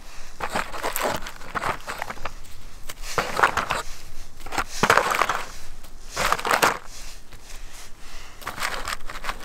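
Rustling and scraping of cardboard and nylon paracord in a series of short bursts as hanks of cord are lifted out of a small cardboard box.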